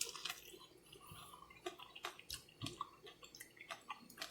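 Faint wet clicks and smacks of someone biting and chewing microwaved corn on the cob.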